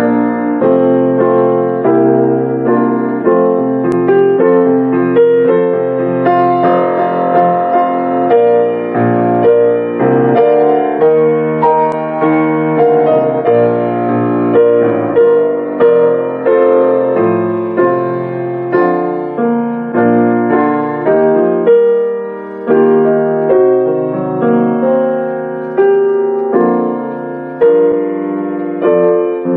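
Grand piano played solo: a continuous flow of notes and sustained chords.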